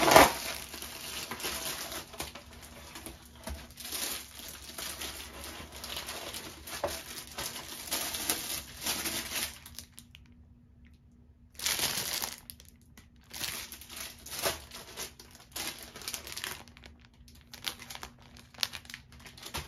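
Clear plastic packaging crinkling and rustling as it is torn open and handled, in irregular crackles, starting with a loud rustle and broken by a short near-silent pause about halfway through.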